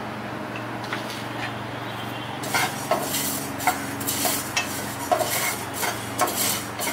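Wooden spatula stirring mustard seeds, cumin, fenugreek and black peppercorns roasting in a nonstick frying pan: repeated scraping and rattling of the seeds against the pan, starting about two and a half seconds in, over a steady low hum.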